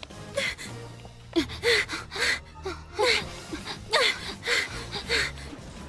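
A young girl's voice panting hard in short, pitched gasps, about two a second: out of breath from running.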